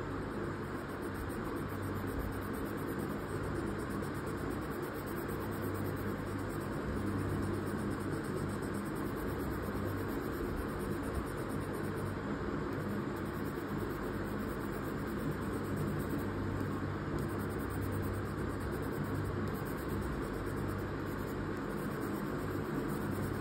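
Steady low hum and hiss of background noise, even throughout.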